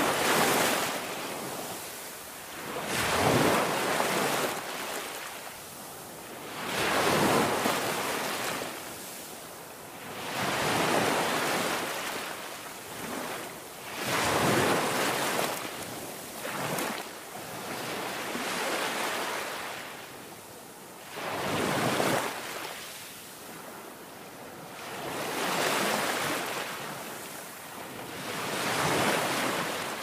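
Sea surf breaking and washing over rocks, rising and falling in surges every three to four seconds, some hitting suddenly.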